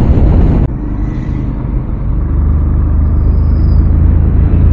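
Motorcycle engine running while riding, with a rush of wind on the handlebar-mounted camera. The loud wind noise drops off suddenly just under a second in, leaving a steadier engine hum that slowly grows louder.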